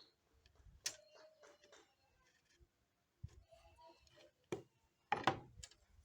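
Quiet, scattered clicks and knocks, a few sharp ones about a second apart, with the loudest knock about five seconds in; no motor is running.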